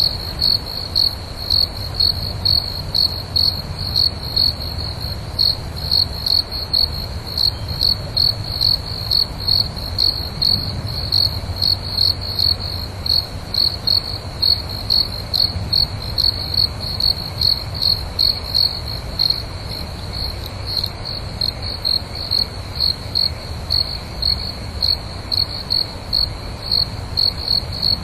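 A cricket chirping steadily, one high-pitched chirp about every half second, over a faint low background rumble.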